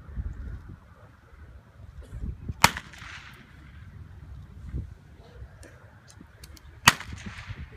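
Two blank-pistol shots about four seconds apart, each a sharp crack followed by a short echo: the gunfire test fired during IPO heelwork to check the dog's steadiness under gunfire.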